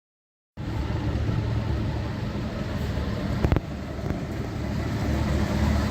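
Austin Allegro's engine running steadily with a low, even hum, coming in about half a second in, with one sharp click about three and a half seconds in.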